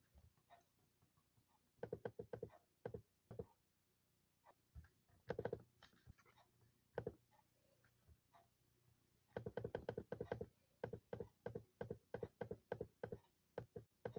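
Typing on a computer keyboard and clicking a mouse: short clusters of quick, light taps with pauses between, and a longer run of rapid keystrokes from about nine seconds in.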